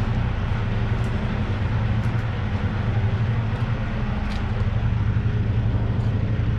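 Semi truck's diesel engine idling: a steady, even low drone, with a few faint clicks over it.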